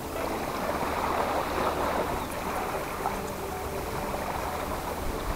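Small lake waves washing steadily onto a sandy beach, with a low rumble of wind on the microphone underneath.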